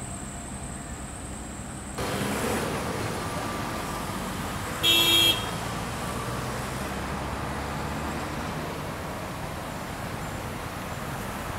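Steady road traffic noise from passing cars and buses, growing louder about two seconds in, with one short vehicle horn toot about five seconds in, the loudest sound.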